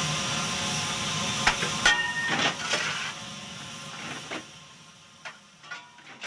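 Steam locomotive hissing steadily, with a run of sharp, irregular knocks starting about a second and a half in. The sound fades away towards the end.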